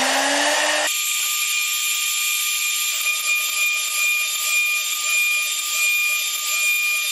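Avid CNC router spindle whining as it spins up, its pitch still rising. About a second in it changes suddenly to the spindle running at full speed with a steady high whine as the end mill cuts rings in plywood. From about three seconds in, a faint wavering repeats about twice a second.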